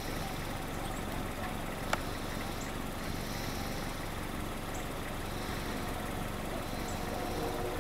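Steady low engine hum, with one sharp click about two seconds in.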